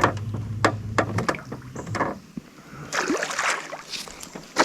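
A few knocks and clatters against a jon boat, then water splashing from about three seconds in as a hooked fish is handled beside the boat.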